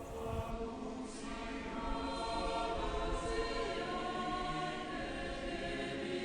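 Background music of sustained, choir-like voices holding slowly changing chords.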